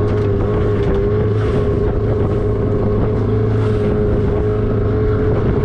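Outboard motor running at a steady speed as a small boat crosses choppy water, with wind rushing over the microphone.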